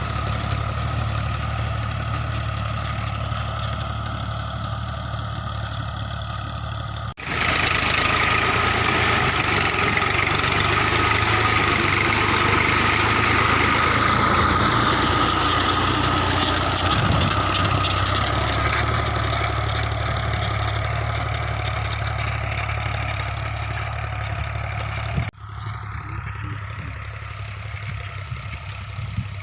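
New Holland Ghazi 65 hp tractor's diesel engine running steadily. The sound cuts abruptly twice, about seven seconds in and again near the end, and is louder in the long middle stretch.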